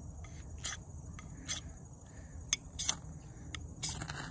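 A ferrocerium fire-steel struck to light a fire: about five short, sharp scrapes roughly a second apart, the last one longer, sending sparks that catch. A steady high-pitched insect trill runs behind.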